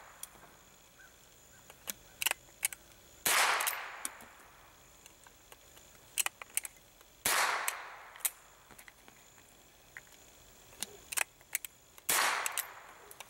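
A single-shot .22 LR bolt-action rifle fired three times, about four seconds apart, each shot trailing off in an echo. Between shots there are small metallic clicks as the bolt is worked and a fresh cartridge is loaded by hand.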